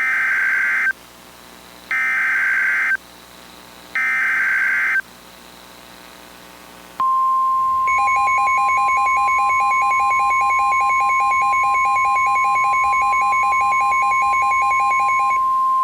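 Emergency Alert System / NOAA Weather Radio alert signal. Three short bursts of warbling SAME header data tones come about a second apart, then a steady 1050 Hz warning alarm tone starts about seven seconds in, heralding a tornado warning. A rapid pulsing beep is layered over most of the steady tone.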